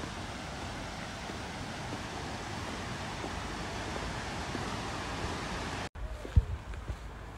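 Steady rushing of a waterfall, cut off abruptly near the end, followed by a quieter stretch with a few low bumps.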